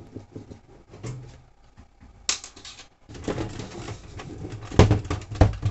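Light screwdriver clicks on the screws of an Aiwa VCR. From about three seconds in, its sheet-metal top cover is gripped and shifted, rattling and clattering, with two sharp knocks near the end.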